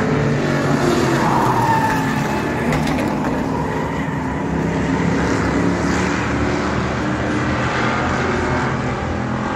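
A pack of street stock race cars running at speed on the track, several engines at once, their pitch rising and falling as they pass and loudest in the first couple of seconds.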